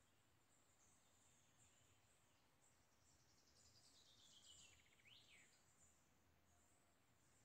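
Very faint outdoor ambience with steady high-pitched chirping. About three seconds in, a bird sings a falling trill of quick notes that ends in a short up-and-down whistle.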